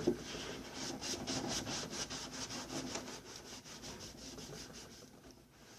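Paper towel wiping and scrubbing a microwave's surface in quick back-and-forth strokes that fade out near the end.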